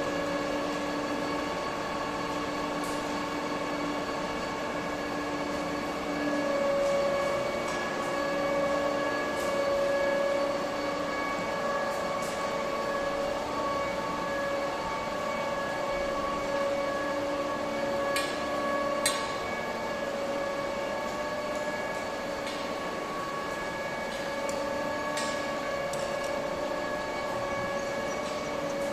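Steady machinery hum made of several held tones that shift in pitch every few seconds, with a few sharp metallic clicks and knocks, the loudest about two-thirds of the way through.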